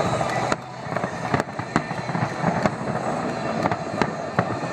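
Fireworks display going off: a string of sharp bangs at uneven intervals over a steady background din.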